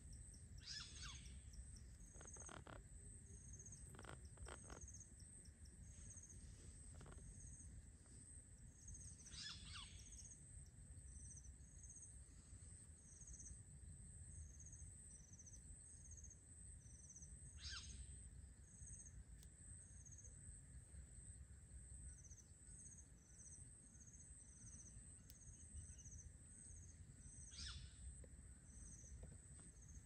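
Faint outdoor birds and insects: a steady high insect drone with rhythmic chirping over it. Four brief, falling whistled bird calls, spaced several seconds apart.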